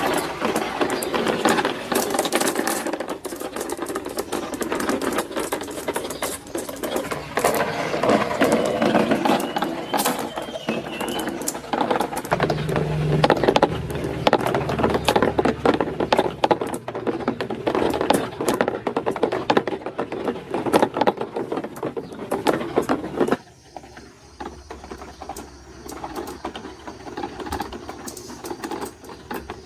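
Many marbles rolling and clattering down a plastic marble-run track: a dense stream of clicks over a rolling rumble. About three-quarters of the way through, the clatter drops suddenly to a quieter, sparser rolling.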